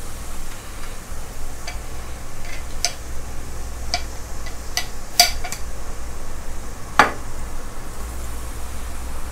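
A metal spoon clinks repeatedly against a bowl as balls are turned in batter, over a steady sizzle of oil deep-frying in a pan. One louder knock comes about seven seconds in.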